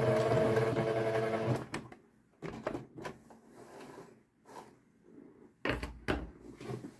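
Sewing machine running steadily, stitching, then stopping about a second and a half in. A few scattered knocks and clicks of handling at the machine follow.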